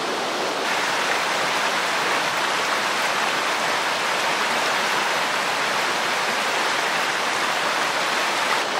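Steady rushing water, a dense even hiss that gets a little louder and brighter just under a second in.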